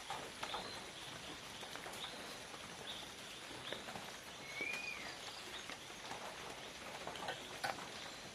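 Forest ambience over a steady hiss. Birds give short high chirps about once a second, with one rising-and-falling whistled note near the middle. Scattered faint clicks or taps run through it.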